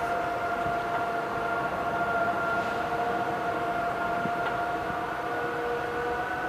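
Machinery running with a steady whine, a constant pitch held over a low rumble.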